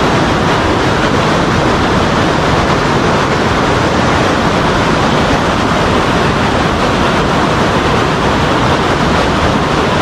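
Creek water rushing over rocks in shallow rapids: a steady, loud, unbroken rush.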